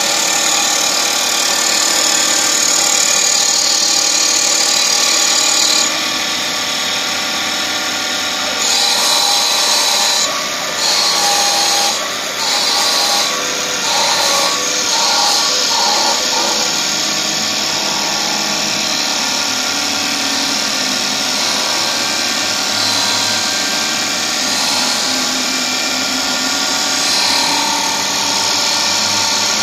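CNC wood-turning bead-making lathe running, its spindle whine and the cutters and drill bit cutting into a spinning wooden blank. The cutting noise comes and goes in short surges about a third of the way through.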